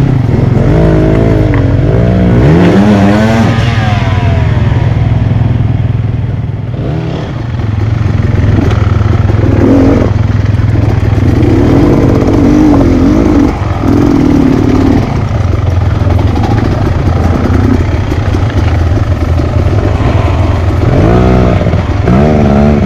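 Dirt bike engine running with a steady low drone, revving up and down in repeated bursts, with the strongest surges about a second in and near the end.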